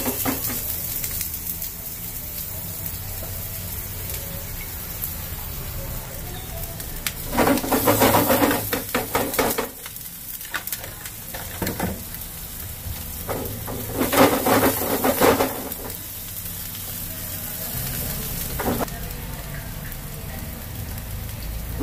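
Diced aromatics sizzling in oil in a nonstick frying pan over a gas burner, a steady hiss. Twice in the middle it swells louder with a rapid clatter as the food is stirred with a metal spoon.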